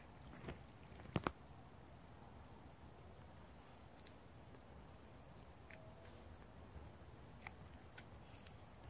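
Near silence outdoors: a faint, steady, high-pitched insect drone, with a couple of sharp clicks about a second in.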